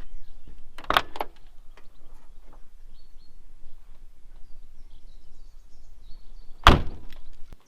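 Two loud, sudden thumps about six seconds apart over steady outdoor background noise, with faint bird chirps.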